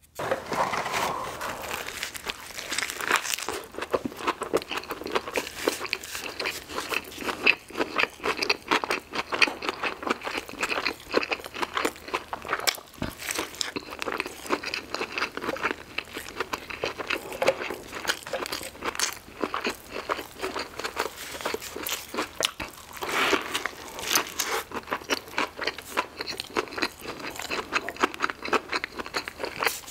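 Close-miked biting and chewing of a Chick-fil-A Spicy Deluxe fried chicken sandwich: crunching of the crispy breaded fillet, with dense, irregular crackles that start suddenly with the first bite and go on throughout.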